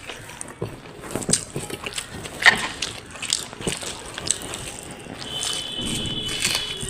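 Close-up eating sounds: irregular wet chewing and crunching clicks. A steady high tone comes in about five seconds in.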